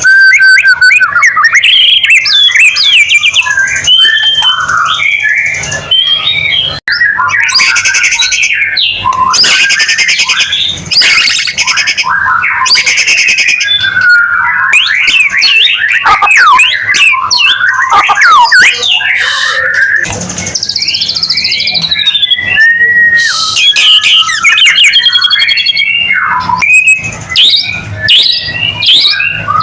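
White-rumped shama (murai batu) in full song: a loud, continuous, rapidly varied run of whistles, sweeping notes and fast trills.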